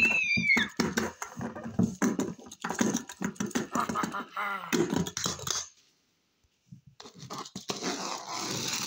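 A high squeal that bends down and stops about half a second in. Then scraping, rustling and tapping as a plastic toy scorpion is worked across a box, with a brief break in the sound a little past the middle.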